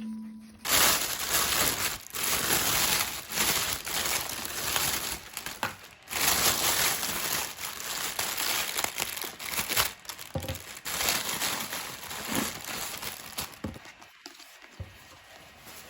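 Crinkling and rustling in irregular bursts with short breaks, starting suddenly about a second in and dying away near the end.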